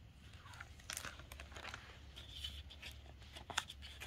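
Hardcover picture book being opened by hand: faint rustling and crinkling of the cover and paper, with a few light clicks.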